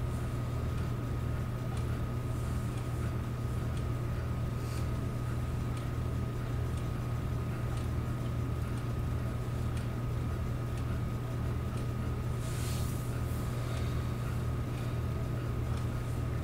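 Steady low mechanical hum with a thin, constant high whine and scattered faint clicks, with a brief hiss about three-quarters of the way through.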